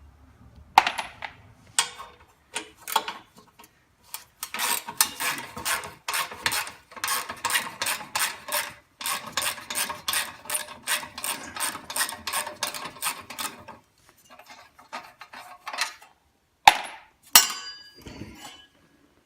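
Socket ratchet wrench clicking in a long run of quick, even clicks for about ten seconds while a bolt is backed out, with a few sharp metal knocks and clanks before and after.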